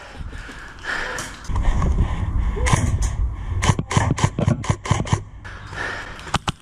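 Airsoft rifles firing quick single shots as sharp cracks, several a second, coming in two runs about three seconds in and again from about four to five seconds in, over low rumbling handling noise.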